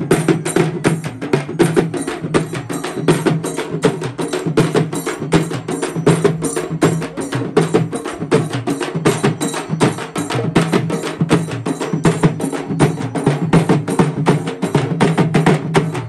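Group of frame drums beaten together in a fast, steady rhythm of sharp strokes, with a ringing drum tone under each stroke.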